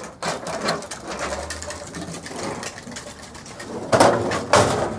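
Metal drawers of a Craftsman rolling toolbox sliding on their runners and rattling, with two loud clunks about four and four and a half seconds in as drawers are pushed shut.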